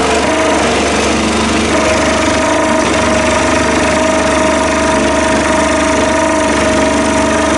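Scroll saw running steadily, its fine reciprocating blade, an Olson thick-wood blade, cutting through Baltic birch plywood as the board is hand-fed along the line.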